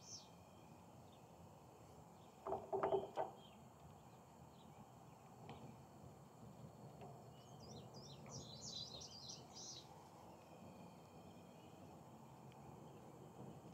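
Faint chirping of small songbirds in the background, clearest in a run of quick chirps about eight to ten seconds in. A short clatter about two and a half seconds in, from small metal valve parts handled on the workbench.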